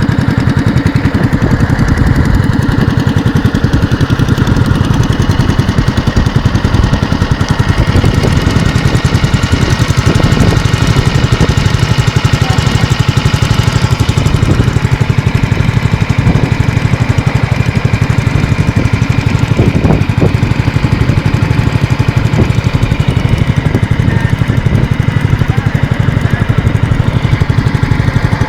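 A small engine running steadily at close range, with a fast, even pulsing beat.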